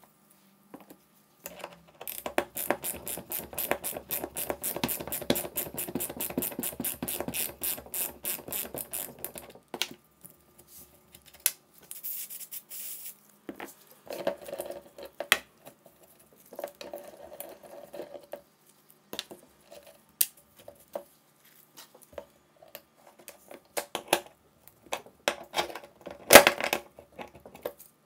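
Ratchet wrench clicking in a fast, even run for several seconds as it turns the blade pivot nut of a pneumatic pruning shear. A brief hiss follows, then scattered metallic clinks and knocks from wrenches on the shear, the loudest near the end.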